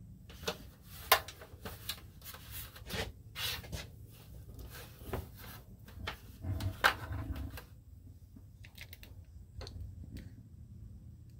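Hands handling loose electrical wiring at an open roof-vent frame: rubbing, rustling and a string of sharp clicks and knocks, loudest about a second in and again near seven seconds, then fainter scattered ticks.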